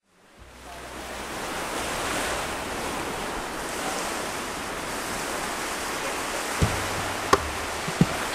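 Rushing water and wind noise on a camera skimming just above a lake's surface behind a moving boat, fading in over the first second and then running steadily. A few sharp knocks come near the end.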